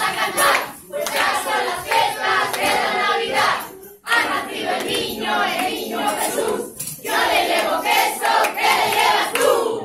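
A group of voices singing and shouting together in phrases, broken by short pauses about a second in, about four seconds in and just before seven seconds.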